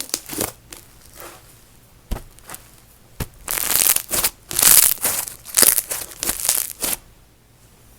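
Wet, sizzly snow butter slime being squished and pressed, giving a few sharp pops and then a run of crackly, crinkling bursts in the middle seconds before it goes quiet near the end.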